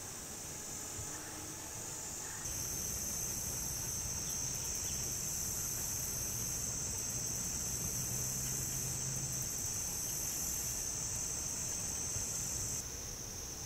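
Woodland insect chorus trilling steadily. A second, higher insect buzz joins about two and a half seconds in and cuts off suddenly shortly before the end.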